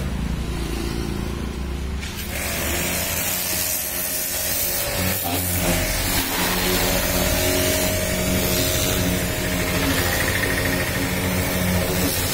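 Pressure washer running: a steady motor drone under the hiss of the high-pressure water jet striking the car's bodywork. The spray hiss grows fuller about two seconds in.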